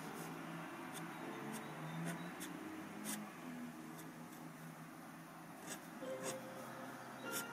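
Steel dip-pen nib (G-pen) scratching on paper in short inking strokes: a run of quick separate scratches, a pause of about two seconds, then two more.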